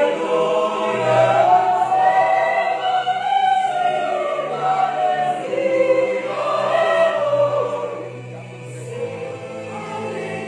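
Mixed church choir singing a hymn in parts, holding long notes; the singing grows softer about eight seconds in.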